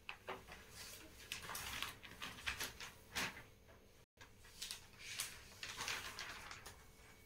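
Faint scattered rustles and soft clicks of handling noise in a quiet small room, with a brief dead gap in the sound about four seconds in.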